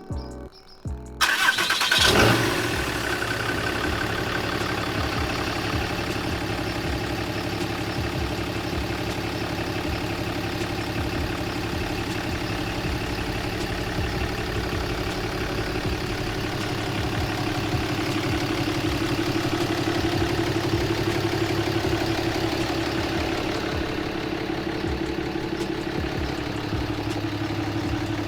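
2008 Ram 2500's 6.7 Cummins diesel engine starting up about a second in, then idling steadily.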